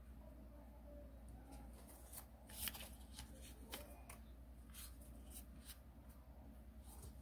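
Origami paper rustling and crackling faintly as it is folded and creased by hand: a scatter of short crisp ticks, the loudest about two and a half seconds in, over a low steady hum.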